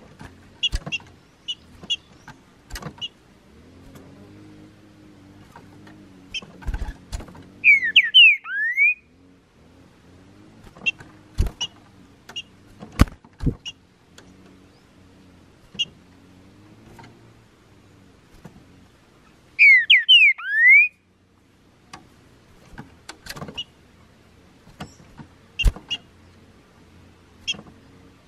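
Green-winged saltator (trinca-ferro) singing a short, loud phrase of quick whistled notes twice, about twelve seconds apart. Scattered sharp clicks and short high chips run between the phrases, over a low rumble.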